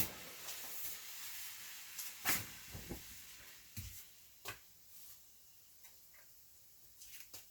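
A few scattered knocks and clicks of kitchen handling, like cupboards and dishes being moved, the loudest about two seconds in, over a faint hiss that dies away.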